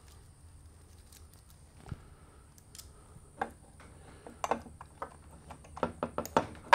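Loose saw chain clicking and rattling against the guide bar and clutch sprocket as it is fitted onto a Stihl MS 261 by hand, in a few sparse clicks at first and more often in the second half.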